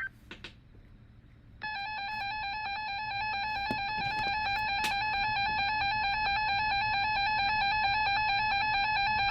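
Emergency Alert System attention tone, starting about a second and a half in and then holding steady at one pitch. It is the alarm that announces a new warning message to follow.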